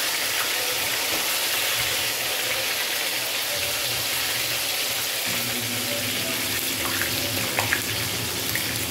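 Floured fish pieces sizzling steadily in hot oil in a stainless steel frying pan as they are turned over with a wooden spoon and spatula. A few light utensil clicks come about seven seconds in, and a low hum joins about five seconds in.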